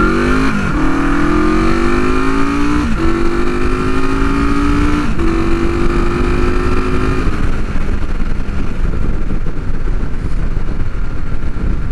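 1973 Honda CB450 parallel-twin on cheap aftermarket pipes, accelerating through the gears with three upshifts, its note climbing after each. After about seven seconds the engine note steadies and then fades under wind rush.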